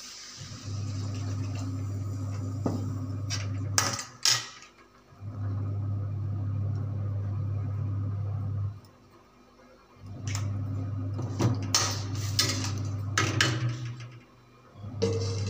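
Steel spatula and utensils clinking and scraping against a steel kadai, with a few sharp clanks about four seconds in and a cluster more between about eleven and fourteen seconds. Under them a low hum starts and stops several times.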